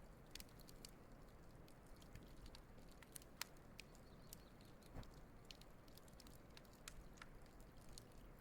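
Wood campfire crackling faintly: scattered small sharp pops and ticks over a low hiss, with one louder pop about three seconds in.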